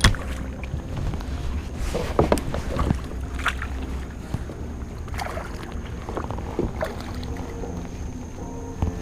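Scattered knocks and taps on a kayak as it is handled and the angler moves about, over a steady low rumble.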